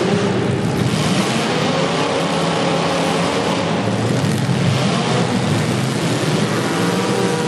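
Demolition derby cars' engines running and revving together, loud and continuous, with a dense roar of noise over them.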